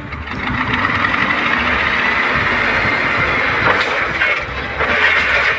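Remote-control toy truck running, a steady engine-like noise.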